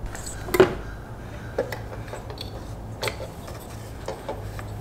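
Scattered light clicks and knocks of a new NGK ignition coil being handled and slid down into the spark plug well, the sharpest about half a second in, over a faint low hum.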